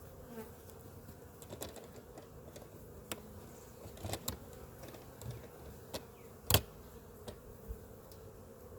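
Honeybees humming steadily around an open hive, with scattered light clicks and knocks. The sharpest knock comes about two-thirds of the way through.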